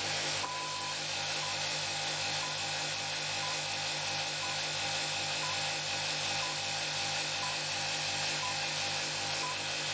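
Small motor-driven steel-disk homopolar generator running steadily, with a low rhythmic throb several times a second and short high beeps about once a second.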